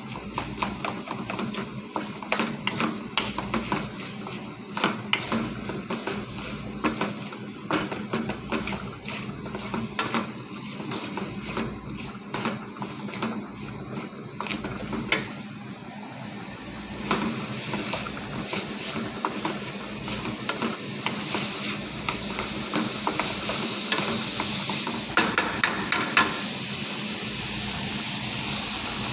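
Wooden spatula knocking and scraping against a nonstick wok as minced chicken, onion and tomato are stirred, over the sizzle of the frying, which grows steadier in the second half.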